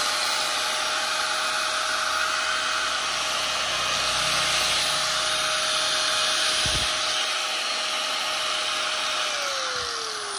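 A 100 V, 720 W HiKOKI (Hitachi) angle grinder running free with no load, a steady electric motor whine. About nine seconds in it is switched off and the whine falls in pitch as it winds down.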